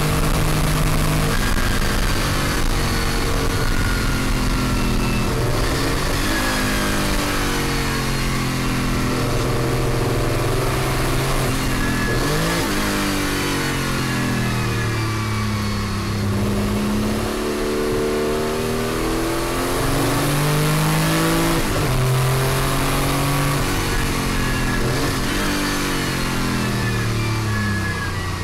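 Porsche 935 'Moby Dick' turbocharged flat-six racing engine heard from the cockpit at speed. Its note climbs and drops over and over as the car accelerates, shifts gear and brakes, over a steady hiss.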